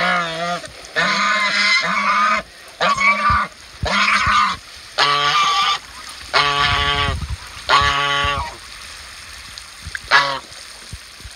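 A pair of white Chinese geese honking loudly, about nine calls each half a second to a second long, with a short one near the end, in the display that follows mating. A hose trickles into their wading pool underneath.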